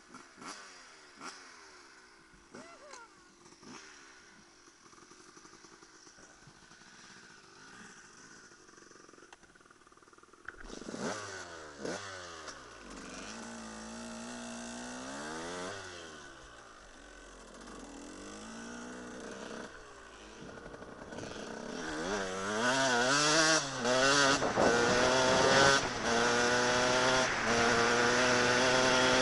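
Dirt bike engine, quiet at first with another bike revving faintly in the distance. About a third of the way in the rider's own bike comes in loud, revved up and down several times while standing. It then pulls away and builds speed through rising and falling revs, loudest near the end.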